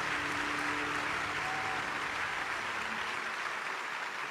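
Audience applauding steadily, easing off slightly toward the end. A faint held note from the end of the music fades out about two seconds in.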